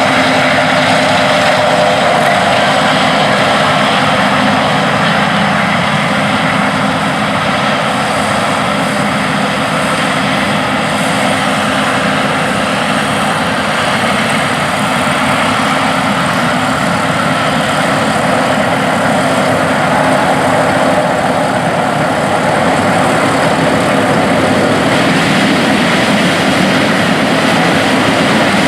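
John Deere S690 combine running steadily while harvesting corn with its 16-row corn head: an even engine and machinery drone with a few held hum tones.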